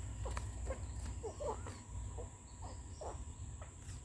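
Outdoor insect chorus: a steady high-pitched insect drone, with many short low chirps repeating every fraction of a second.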